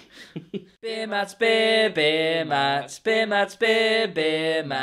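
Sung a cappella intro jingle: voices holding long notes in short phrases, stepping in pitch, starting about a second in.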